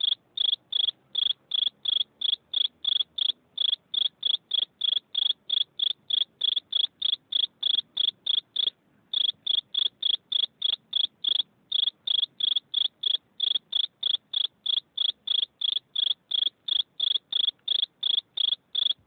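A cricket chirping close by: a steady run of short, high-pitched chirps at about three a second, with a brief pause about halfway through.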